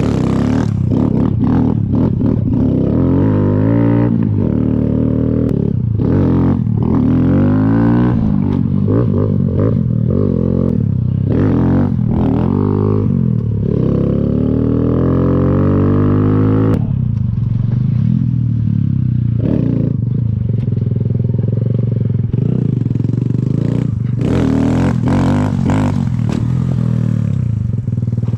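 Kawasaki Z125's small single-cylinder four-stroke engine being ridden, revving up and dropping back again and again, its pitch climbing in several long sweeps, with a few clicks and knocks.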